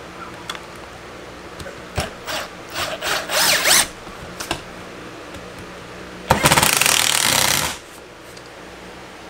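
Cordless drill driving screws through a blue plastic electrical outlet box into a wooden stud. It runs in a few short bursts about two seconds in, rising in pitch in a longer burst around three to four seconds, then makes one longer, louder run of about a second and a half near the end.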